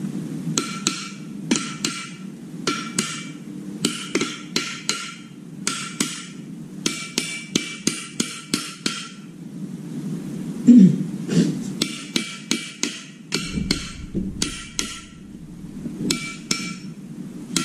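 Repeated sharp metal strikes, like a hammer hitting metal, in irregular clusters of a few blows at a time. Each strike rings briefly at the same pitches, over a steady low hum.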